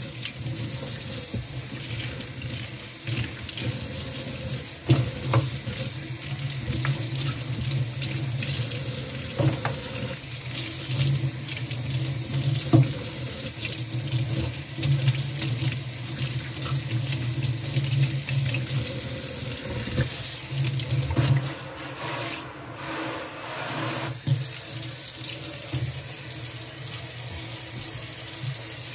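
Kitchen faucet running into a stainless steel sink while dishes are rinsed under the stream, with a few knocks of dishware against the sink.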